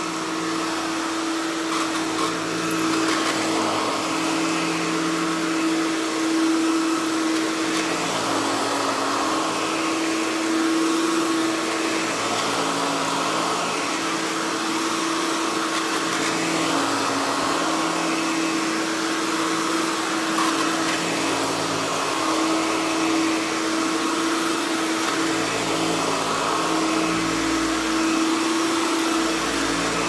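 Hoover Dial-A-Matic U6039 upright vacuum cleaner, a clean-air motor design, running continuously. Its hum holds steady over a rush of air, with the pitch shifting slightly every few seconds.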